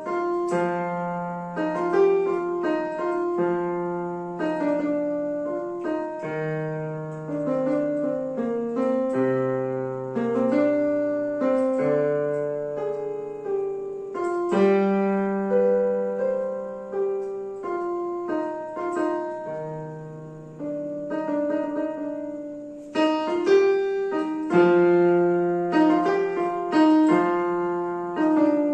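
Yamaha PSR-I500 portable keyboard's piano voice playing a melody over chords, with a low bass note changing every second or two.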